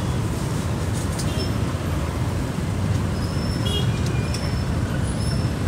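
Steady city street traffic noise, the low rumble of passing engines, with a few short high-pitched peeps scattered through it.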